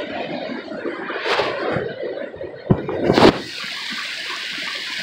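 Muffled rubbing and scuffing of a camera carried in a back pocket, with two sharp knocks about three seconds in as it is pulled out. Then the steady rush of a creek swollen by heavy rain.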